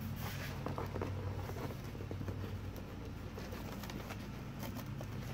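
Cardboard box flaps and packing rustling, with light taps and clicks as hands reach in among boxed gauges, over a low steady hum.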